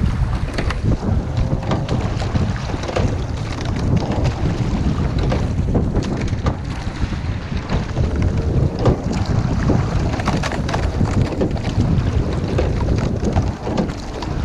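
Wind rumbling on the microphone of a rowing shell under way, with many scattered short knocks and splashes through it.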